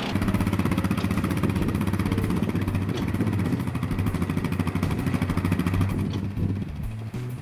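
Engine of an ATV-and-rough-cut-mower rig running steadily, with rapid even firing pulses, a little quieter near the end.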